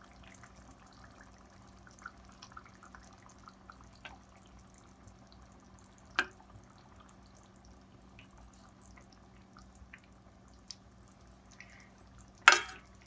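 Pieces of raw catfish slipped one by one into a simmering curry, which bubbles and pops faintly with small drip-like ticks over a steady low hum. A single click about six seconds in, and near the end one sharp knock as a silicone spatula strikes the pan while the fish is pushed into the sauce.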